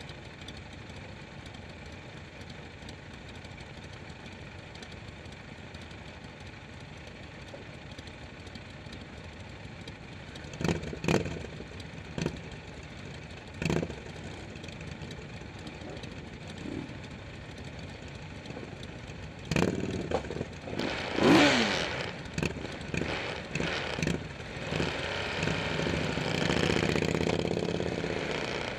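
Motorcycle engines idling in a waiting line. About ten seconds in, a few short, sharp throttle blips come, with more revving around twenty seconds. Near the end the engines rise and pull away as the bikes move off.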